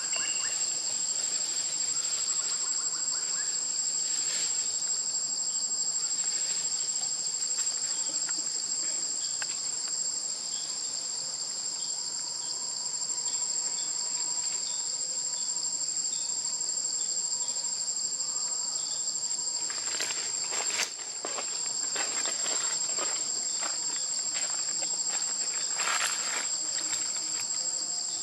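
Steady, high-pitched chorus of insects droning without pause, with a few short clicks or rustles about two-thirds of the way through and again near the end.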